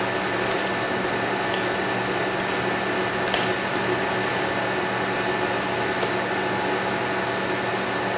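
Plastic compression film crackling as it is unwound and pulled tight around a pipe repair, in scattered short ticks, the loudest a bit over three seconds in. Under it runs a steady mechanical hum.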